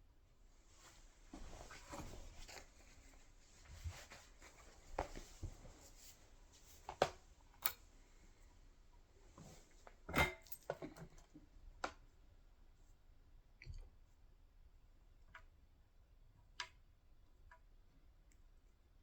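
Hands handling cables and small parts on a workbench: scattered clicks and knocks, with light rustling in the first few seconds, as a DB15 cable is plugged into the G-Box and connected to the module.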